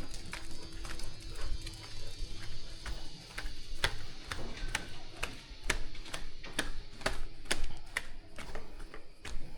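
A run of sharp taps or knocks, irregular at first and then coming about twice a second.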